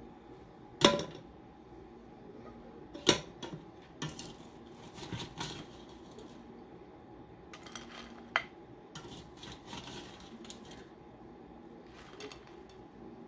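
A ceramic dinner plate and a serving spoon clinking and scraping as roasted potatoes are dished onto the plate. There is a sharp clink about a second in, the loudest. Another comes about three seconds in and one more about eight seconds in, with softer scraping and clatter in between.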